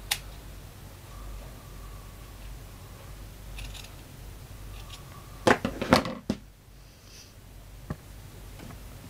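Steel scissors snipping through wool fabric. A quick cluster of sharp snips comes about five and a half to six seconds in, and a single click follows near the end as the scissors are set down on the cutting mat.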